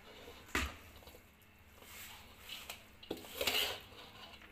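Metal spoon clinking and scraping against a large steel pan while mixing boiled rice: a sharp clink about half a second in, a few lighter knocks, then a longer scrape about three and a half seconds in.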